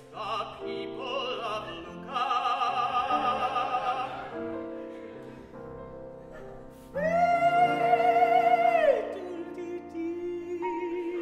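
A male classical singer sings with vibrato, accompanied by a Steinway grand piano. A long high note is held for about two seconds and slides down at its end, followed by lower sung notes over the piano.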